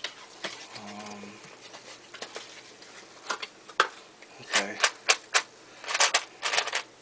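Sharp plastic clicks and clacks as a new AIII-f 3x3 speedcube is taken from its cardboard box and its layers are turned, sparse at first and then in quick clusters in the second half. A brief low hum sounds about a second in.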